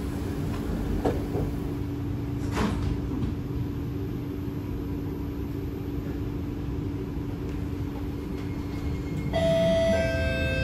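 Cabin noise inside a Kawasaki-Nippon Sharyo C751B MRT train on the move: a steady rumble with a low hum and a couple of knocks, one at the very start and one about two and a half seconds in. Several steady tones begin near the end.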